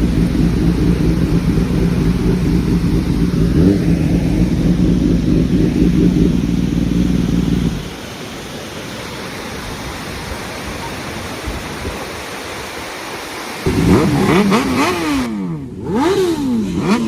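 Kawasaki Ninja ZX-10R inline-four sportbike engine idling steadily and loud for about eight seconds, then dropping to a quieter stretch. From about fourteen seconds in, quick throttle blips send the revs sharply up and back down several times.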